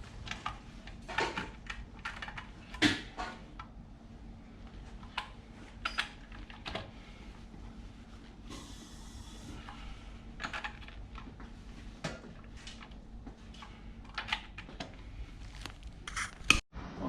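Irregular sharp metallic clicks and clinks of a socket and torque wrench as wheel lug nuts are tightened. A faint steady hum runs underneath and stops near the end.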